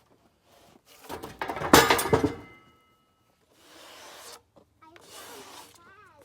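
Cut cedar pieces clattering against metal, loud, about a second in, with a short metallic ring. Two short stretches of scraping follow as wood slides.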